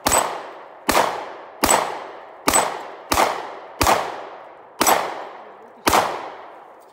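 Handgun fired eight times at a steady pace, roughly one shot a second, each shot trailing off in a fading echo.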